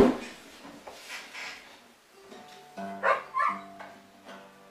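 A sharp knock as the acoustic guitar is bumped, then a few ringing notes plucked on the acoustic guitar, with two short wavering higher sounds over them.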